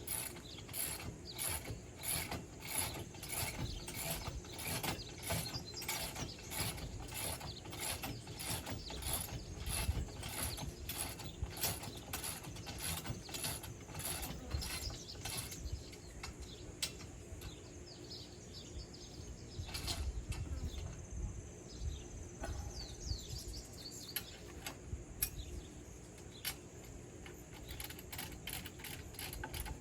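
Ratchet wrench clicking in rapid, even strokes as bolts on a steel kayak rack are tightened, about two or three clicks a second; the clicking slows to scattered strokes about halfway through.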